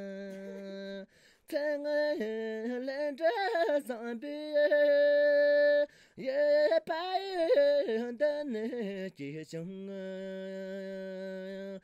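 A solo voice singing a Tibetan-style song, holding long steady notes between quick wavering, yodel-like runs, with short breaths between phrases.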